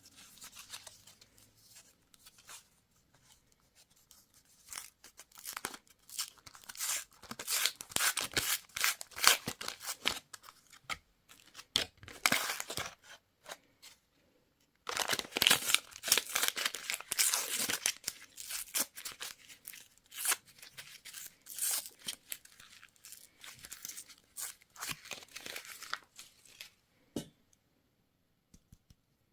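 Packaging being torn open and crinkled by hand, recorded close up: irregular crackles and rips, with a brief pause about halfway through, stopping a couple of seconds before the end.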